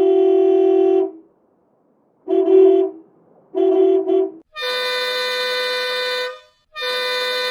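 Bus horn sound effects: a held honk that stops about a second in, two short toots, then two longer, higher-pitched horn blasts.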